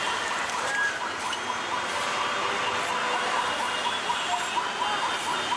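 Busy street noise: a steady din of traffic, with a rapid series of short, high chirps repeating through the second half.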